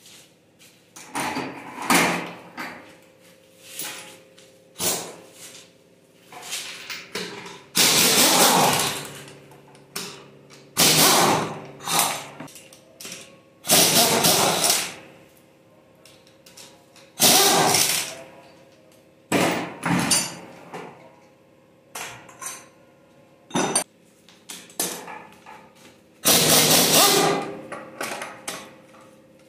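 Metal hand tools knocking, clanking and scraping on engine parts during an engine teardown, in irregular strokes every second or two, some short knocks and some longer rattling scrapes of about a second. A steady faint hum runs underneath.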